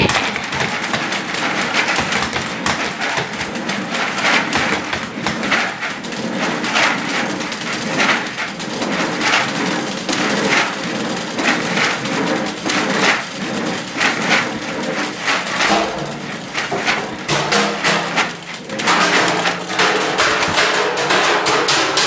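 Loud, unbroken noisy clatter with irregular knocks and bangs, several a second.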